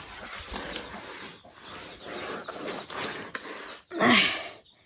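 Hands smearing wet clay mud plaster over a house wall: a rough, uneven swishing and rubbing. About four seconds in, a short loud animal call cuts across it.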